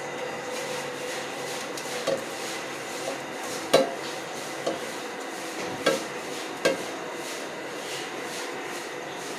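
A spoon stirring rice in a cooking pot and knocking against it: about six sharp clanks spread over several seconds, the loudest near the middle, over a steady hiss.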